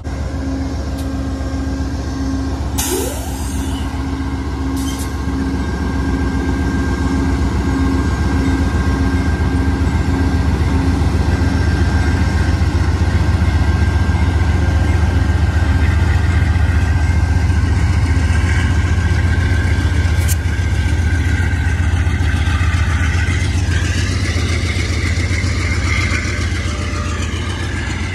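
Amtrak GE P42 diesel locomotive pulling a passenger train away from a station, its engine working hard with a deep, steady rumble as the cars roll past. A wavering high squeal rises near the end.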